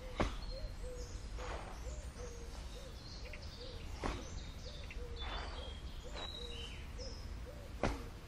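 Kung fu footwork on a sandy dirt path: a sharp foot stamp just after the start and another near the end, a lighter one midway, and scuffing steps between. Behind it a bird repeats short low hooting notes a few times a second, and small birds chirp higher up.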